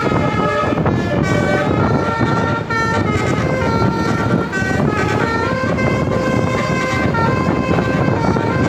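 Indonesian bus "telolet" musical air horn, driven by a horn module, playing a melody: a string of held notes stepping up and down in pitch every half second or so, over road and engine noise.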